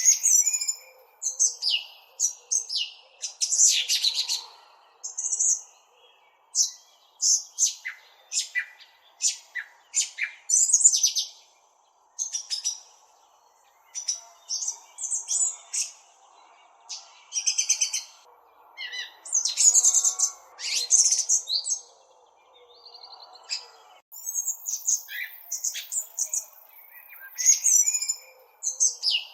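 Small bird chirping close up: quick high chirps and short trills in clusters, with brief pauses between runs.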